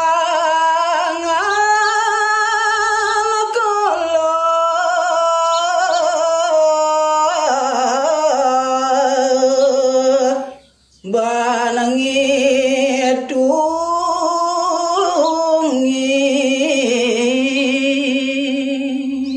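A man singing Balinese geguritan verse in pupuh Ginanti, a solo voice drawing out long held notes with a fast wavering ornament. He stops for one breath about halfway through.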